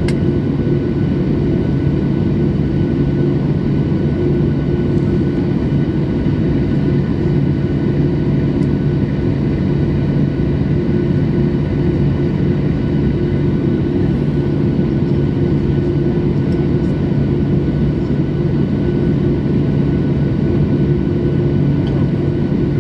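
An airliner's jet engines running steadily, heard from inside the passenger cabin: an even drone with a constant low hum and a second hum a little higher.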